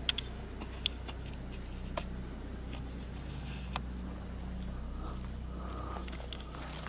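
Crickets chirping in the night air, a high steady trill that turns into a rapid pulsing from about five seconds in. A few short sharp clicks, the loudest near the start.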